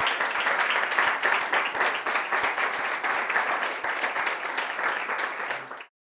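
Audience applauding, a dense steady clapping that cuts off abruptly near the end.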